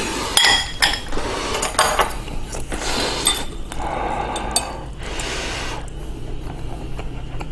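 Eating utensils clinking against dishes several times, some strikes ringing briefly, mixed with close-up eating noises.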